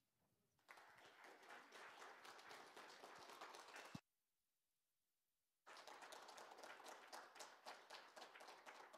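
Audience applauding, faint, with a gap of about a second and a half of dead silence midway before the clapping resumes.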